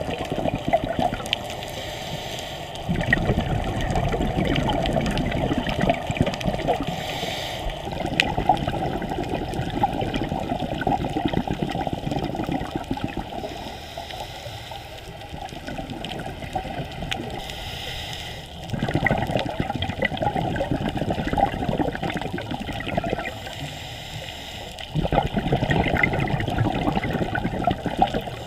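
Scuba diver breathing through a regulator underwater: exhaled bubbles bubble up in stretches of about four seconds, four times, with quieter pauses between breaths.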